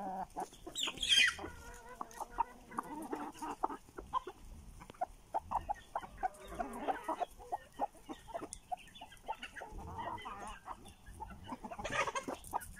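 A flock of chickens clucking, with a loud, shrill, falling squawk about a second in and another near the end.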